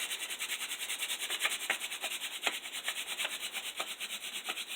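Hand-drill friction fire: a dried mullein spindle twirled fast and hard into a cottonwood hearthboard, wood grinding on wood in a quick, even rubbing rhythm. This is the final high-pressure run that is already smoking and makes the ember.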